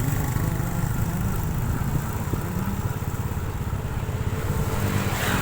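A vehicle engine running steadily with road and wind noise, a continuous low rumble.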